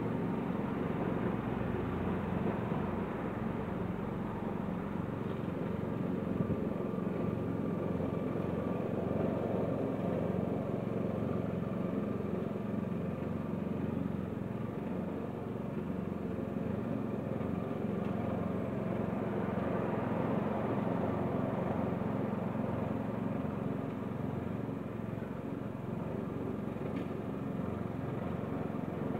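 Wolf walk-behind lawn mower's petrol engine running steadily while cutting grass, getting slightly louder and quieter as the mower is pushed back and forth.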